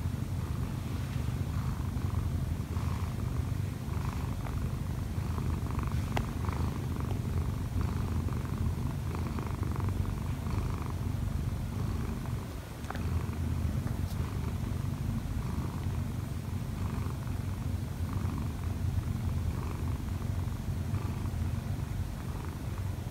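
Munchkin cat purring up close, a steady low purr with a regular pulse, dipping briefly about halfway through. It is purring while kneading on its owner, a sign of contentment.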